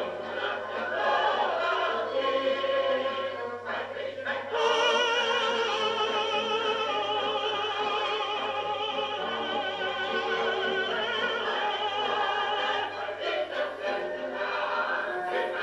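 Shellac 78 rpm record of a tenor with chorus and orchestra, played through a 1956 Philips radiogram. Chorus and orchestra sing at first; about four and a half seconds in, a long high note with wide vibrato is held for some eight seconds over the orchestra, with a steady low hum underneath.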